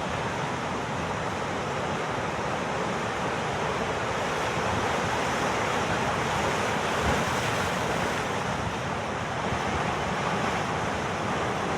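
Heavy sea surf breaking and washing on a rocky shore, a steady rushing noise, with wind buffeting the microphone.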